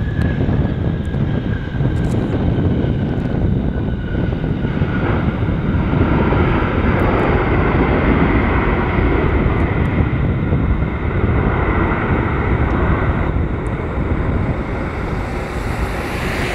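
Boeing 717-231's rear-mounted Rolls-Royce BR715 turbofans on the landing rollout: a loud, steady jet roar, with a whine that falls in pitch over the first few seconds.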